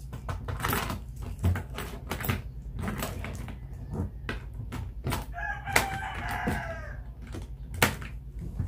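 Clicks and taps of fingers working the combination lock and zipper pulls of a hard-shell suitcase, with two sharper clicks in the second half. Midway a rooster crows once, a call of about a second and a half that falls in pitch.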